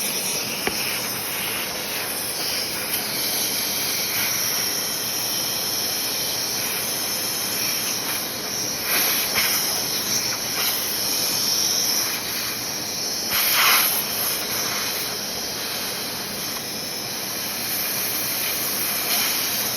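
Vacuum cleaner running steadily as it sucks dust out of a smoke detector, to test whether a dirty sensor is behind the false alarms. The airflow noise surges briefly a couple of times midway.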